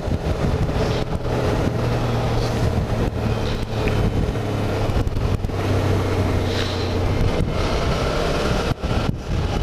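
Suzuki V-Strom 650XT's V-twin engine running at steady revs while the motorcycle is ridden along, with wind rushing over the microphone.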